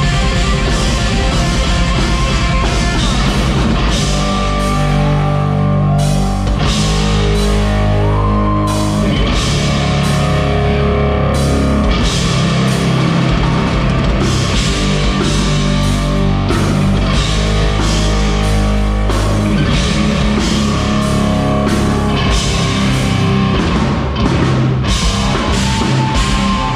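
Live rock band playing heavy, loud music: distorted electric guitars and bass over a pounding drum kit with crashing cymbals.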